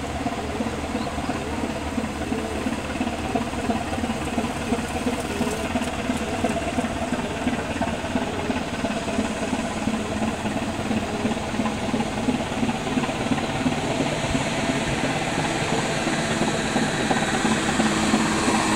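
Steady engine drone with a fast pulsing throb, slowly getting louder toward the end.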